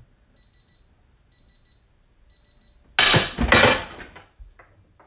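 Three short electronic beeps about a second apart from a digital torque meter under load, then about three seconds in a loud crack and clatter as a Snap-on Dual 80 3/8-inch drive ratchet shears cleanly off at about 293 ft-lb and the cheater bar drops. Two light knocks follow near the end.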